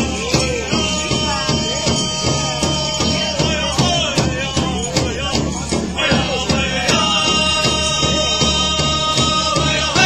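Powwow drum-and-song music: a drum group singing in long, high held notes over a steady, even beat on a large drum, with a new phrase of the song starting about six seconds in.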